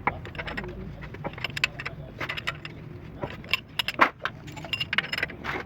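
Irregular light metallic clicks and clinks, the sharpest about four seconds in, over a low steady hum.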